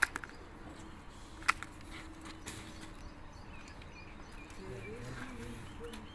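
A few sharp clicks and taps as a seal ring is handled and pressed into the bore of a steel hydraulic cylinder gland: one at the start, the loudest about a second and a half in, a softer one a second later. Faint bird chirps and distant voices sit behind.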